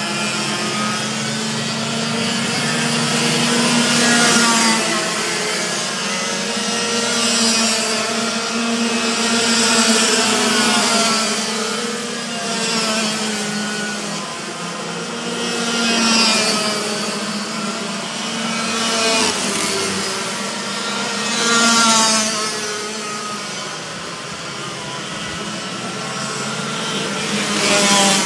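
Racing kart engines buzzing as a pack of karts laps a wet track, the pitch rising and falling with the throttle and swelling as the karts pass by in waves about every six seconds. A hiss of tyre spray runs under the engines.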